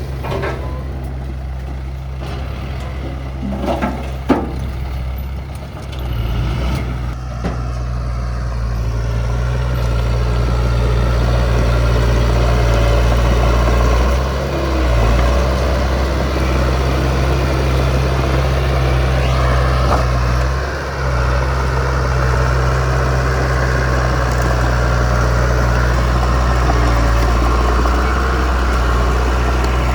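Heavy diesel engine of earth-moving machinery running steadily, getting louder about ten seconds in, with a few sharp knocks around four seconds in.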